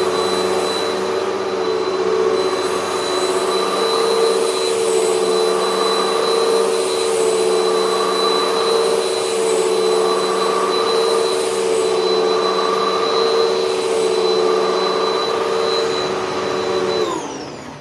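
Hoover WindTunnel MAX upright vacuum cleaner running steadily over carpet, its motor giving a high whine. Near the end it is switched off and the motor winds down, falling in pitch.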